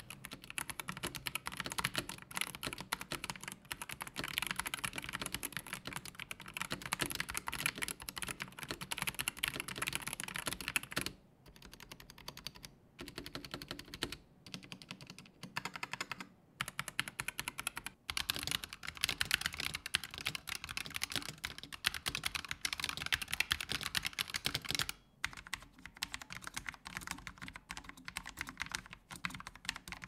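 Typing on a Corsair K100 RGB gaming keyboard with OPX optical linear switches: a rapid stream of key presses, broken by a few brief pauses. About 25 seconds in, it changes to typing on a Corsair K70 RGB MK.2 with low-profile MX Speed switches.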